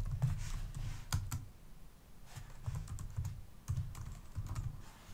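Keys on a computer keyboard being typed in short runs of a few keystrokes with brief pauses between them, as a terminal command is entered.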